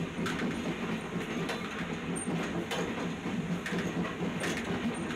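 Passenger train rolling slowly, heard from inside the coach: a steady rumble of the wheels on the track, with a sharp wheel click over a rail joint about once a second.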